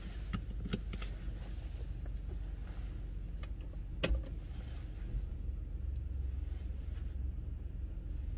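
Car idling, heard from inside the cabin as a steady low rumble that grows a little stronger in the second half. A few light clicks come in the first second, and a louder click-thump about four seconds in.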